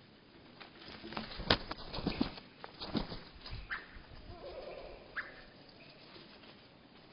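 Birds at a seed feeder, slowed to one-third speed: a cluster of knocks and taps from about a second in to three seconds in, then two short, lowered-pitch calls.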